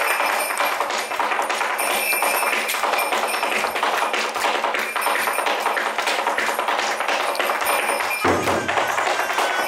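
Percussive music with dense, rapid tapping and jingling, like shaken rattles or a tambourine; a lower sustained tone joins a little after eight seconds in.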